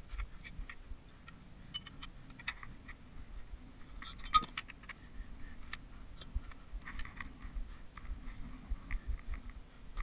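Scattered light clicks and clinks of tent poles and gear being handled, with one sharp click a little over four seconds in, over low rumbling bumps.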